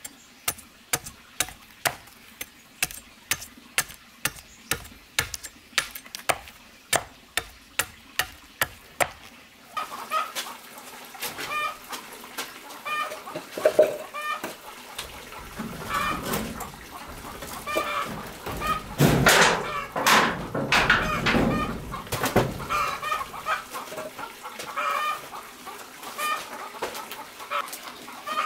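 Machete blade striking bamboo on a wooden chopping stump, about two sharp knocks a second, as the bamboo is split into thin sticks. This stops about nine seconds in. Then chickens cluck over rustling and handling knocks.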